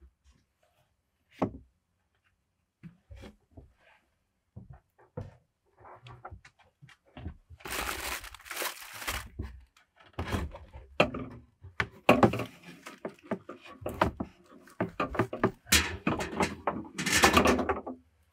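White plastic sink being worked loose and lifted out of its cutout in a plywood countertop: a few single knocks, then from about halfway repeated loud scraping and rubbing of plastic against wood, with knocks among them.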